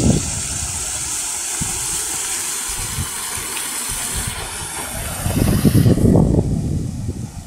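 TAI-YIH SUN paddle wheel aerator churning pond water: a steady hiss of splashing, foaming water that thins out about six seconds in. Irregular low rumbling buffets come and go, loudest from about five to six and a half seconds in.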